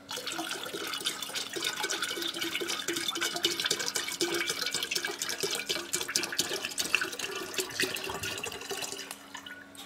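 95% spirit glugging out of an upturned glass bottle into a glass jar of grape juice: a steady pour with rapid, uneven glugs that starts suddenly and tails off near the end.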